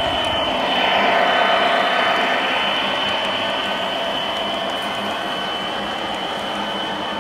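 Model trains rolling past on the layout's track: a steady whir of wheels and motors with a thin constant high whine. It swells about a second in, then eases off slightly.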